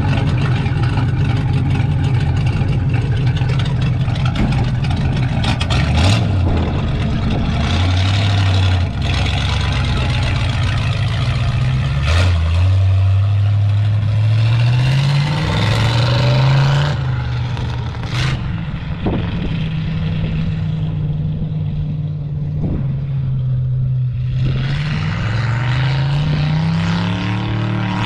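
Vehicle engine running under way, its pitch climbing and then dropping back several times as it shifts up through the gears, with a few sharp knocks.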